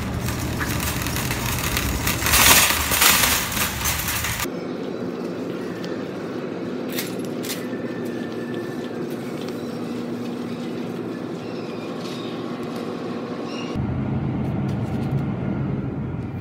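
Wire shopping cart clattering as it is pulled from the rack, loudest about two to three seconds in, then rattling and rolling more quietly across a hard store floor, with a few sharp clicks.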